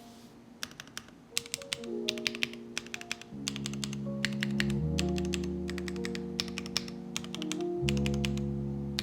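Mechanical keyboard typing with Akko Stellar Rose linear switches (made by HMX, factory-lubed) in a foamless build: quick bursts of keystrokes with a clacky, poppy, rather low-pitched sound, over background music whose bass comes in about a third of the way through.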